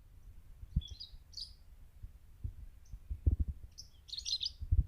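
Lovebirds chirping in two short clusters of high chirps, about a second in and again near the end. Several dull low bumps, louder than the chirps, are heard throughout.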